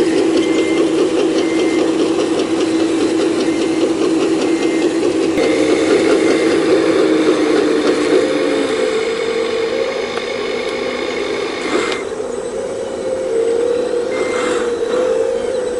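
Full-size excavator's diesel engine running under hydraulic load, its pitch stepping up about five seconds in, with metal rattling and clanking from the machine and a short high beep sounding on and off.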